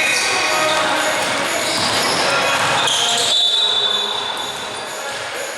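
Basketball being bounced on a gym floor with voices echoing in the hall, and a high, steady tone lasting about a second just past the three-second mark.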